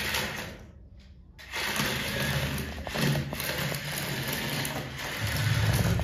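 Battery-powered toy excavator driving along, its small electric motor and plastic gears whirring steadily from about a second and a half in.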